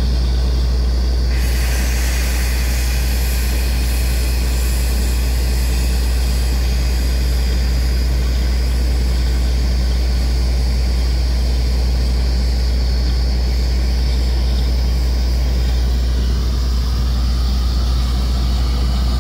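Truck-mounted borewell drilling rig and its air compressor running steadily with a deep, even drone. A hiss of air over the drone grows stronger about a second in.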